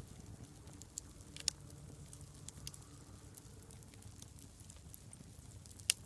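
Dying campfire crackling: sparse, sharp snaps and pops at irregular intervals, the loudest one near the end, over a low steady rumble.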